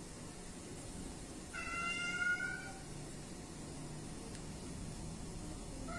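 A cat gives one drawn-out, high-pitched yowl about a second and a half in, then starts another just before the end: the warning call of a cat squaring up to another.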